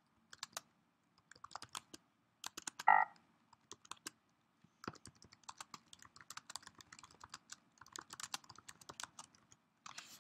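Typing on a computer keyboard: irregular key clicks, sparse at first and then a quick, dense run of keystrokes from about halfway through. There is a brief louder sound just under three seconds in.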